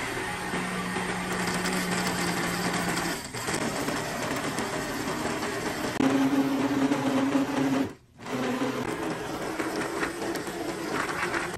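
Countertop blender motor running, churning a thick liquid laundry mix of detergent, softener and scent beads. It runs higher and louder from about six seconds in, with a short dip about three seconds in and a brief stop about eight seconds in.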